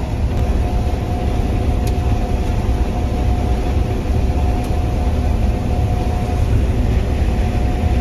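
Combine harvester running steadily while harvesting soybeans: a deep, even engine drone with a steady whine on top.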